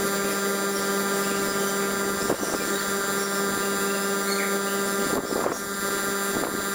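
Refrigerator compressor running with a steady hum, with a few light knocks.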